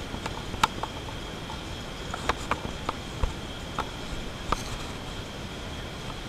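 Steady exhibition-hall background noise with a faint, steady high tone. Irregular light clicks and taps come through it, about a dozen in all.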